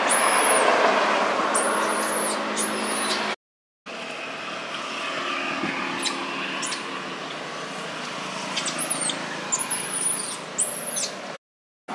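Steady outdoor background noise with a low hum, broken by clusters of short, very high-pitched chirps near the start and again near the end; the sound drops out abruptly twice.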